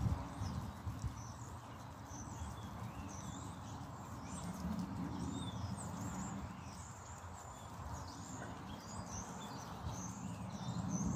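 A large herd of guinea pigs eating chopped vegetables: a dense, busy crunching and chewing, with many short high chirps scattered over it.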